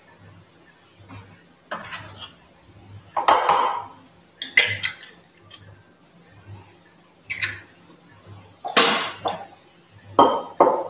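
Eggs being cracked open one after another: a series of sharp taps and clinks of eggshell against bowl rims, with brief shell-breaking crackles.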